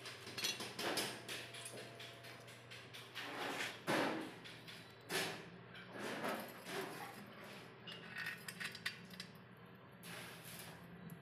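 Small metal clinks, knocks and scrapes from handling a rolling shutter's steel coil spring, a bolt and the steel pipe shaft as the spring is fitted onto the shaft, with the loudest knocks about 1, 4, 5 and 6 seconds in. A faint steady hum runs underneath.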